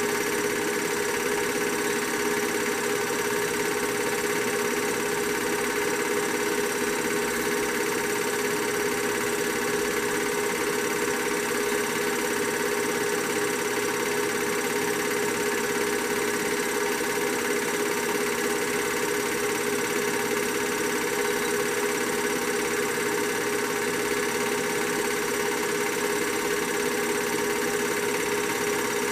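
Film projector running steadily: an even mechanical whir with a constant hum and no change from start to end.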